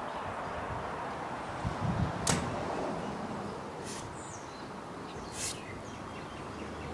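Quick, sharp swishes of a loose martial-arts uniform as strikes are thrown in a kung fu form, three of them about a second and a half apart. The first and loudest swish follows a couple of low thumps about two seconds in. A steady outdoor hiss runs underneath.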